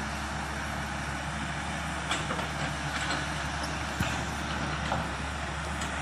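Hitachi tracked excavator's diesel engine running steadily while digging. Several short, sharp knocks come from about two seconds in, the loudest about four seconds in.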